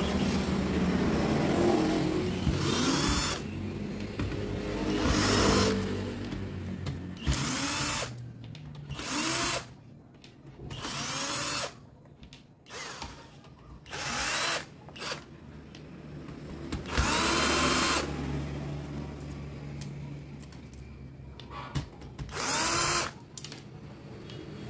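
Electric screwdriver running in about a dozen short bursts, backing screws out of a photocopier's panel, its whine gliding up and down in pitch within each burst.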